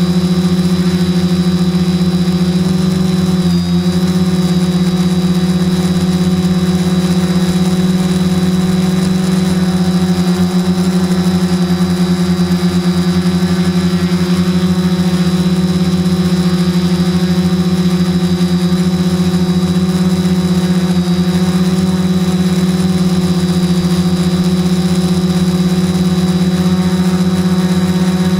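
Q450 quadcopter's motors and propellers whirring steadily at close range, heard through the action camera mounted on the drone, with a brief dip in pitch about three and a half seconds in.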